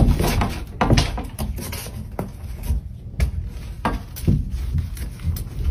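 A room door being pushed open: scattered short knocks and clicks over a low rumble of movement.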